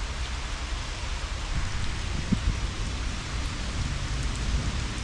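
Steady rain falling, drops landing on wet grass and in puddles on concrete, with a low rumble underneath.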